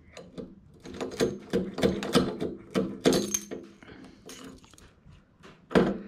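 Metal clinks and rattles as the nut, washer and taper roller bearing are worked off an MGB front hub, dry and ungreased, with a sharper clack near the end.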